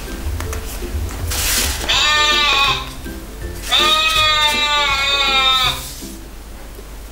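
Recorded goat bleats from a children's pull-tab sound book, triggered as the tab is pulled: a short bleat about two seconds in, then a longer wavering one. Background music plays throughout, and a brief card rustle comes just before the first bleat.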